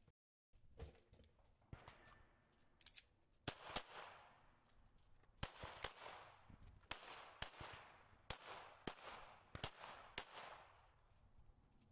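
Semi-automatic pistol shots fired in quick pairs, about ten loud shots in all starting a few seconds in, each with a short ringing tail, with a few fainter cracks before them. The audio drops out briefly at the very start.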